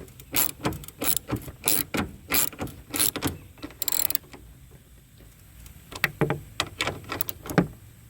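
Hand ratchet wrench driving a 3/8 bolt, in short ratcheting strokes about one every two-thirds of a second. After a pause, a few sharp clicks of the tool near the end.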